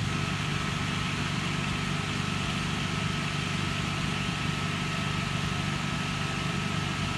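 Stationary V-set double-deck intercity electric train humming steadily as it stands at the platform: an even low drone with a thin, steady high whine above it.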